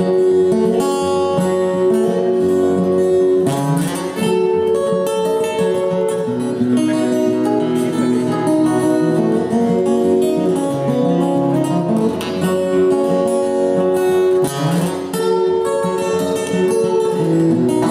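An acoustic guitar trio playing an instrumental tune together, with many plucked notes moving in a steady rhythm.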